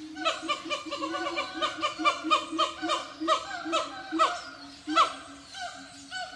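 Siamangs calling in a song bout: a fast run of loud whooping barks, about three or four a second, that builds to a loudest call about five seconds in, then eases into softer calls.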